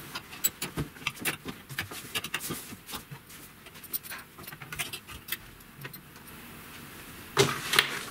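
Plastic clothes hangers clicking and clattering against each other and a metal wardrobe rail, with clothes rustling; a louder rustle and clatter near the end.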